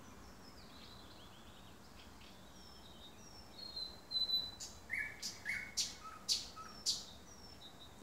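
Thrush nightingale singing: faint, short high notes at first, then about halfway through a loud phrase of sharp clicking notes mixed with short lower notes.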